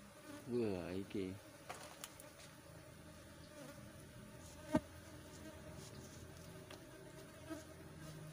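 Asian honeybees (Apis cerana) buzzing steadily around an opened box hive. About half a second in there is a louder, wavering buzz that sweeps down and up in pitch for under a second, and there is one sharp click about midway.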